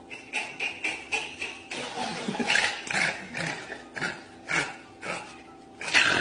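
Large folding hand fan being snapped and flapped, a quick series of sharp clacks followed by a few louder swishing snaps.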